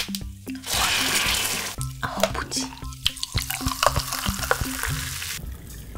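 Bottle of Seagram's sparkling water hissing as its cap is twisted open, then fizzing and crackling as it is poured into a glass. It stops a little before the end. Background music plays under it.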